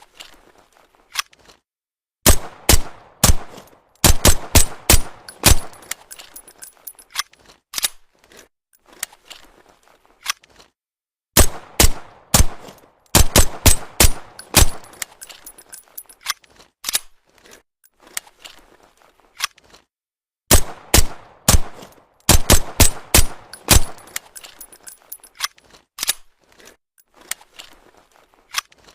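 Walther PPK pistol fired with a suppressor: sharp shots in quick strings of several, separated by pauses of a few seconds, with fainter clicks in between.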